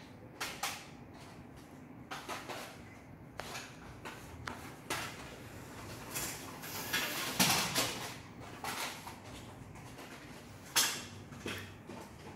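Plastic cassette tape cases clicking and clattering as they are picked up, sorted and stacked by hand: irregular light clicks, a longer run of clatter midway and one sharper click near the end.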